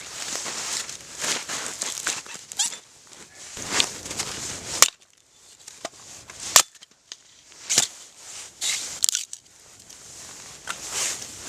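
Wood campfire crackling, with sharp irregular pops and snaps scattered through and a brief lull about five seconds in.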